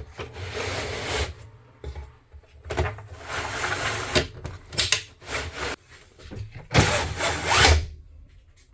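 Four rough scraping or rubbing sounds, each about a second long, with short pauses between them.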